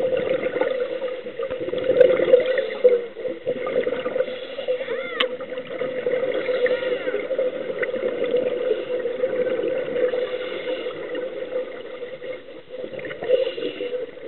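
Underwater sound through a camera housing: a steady hum with gurgling from scuba divers' bubbles, and a few short whistles that glide up and down about five seconds in.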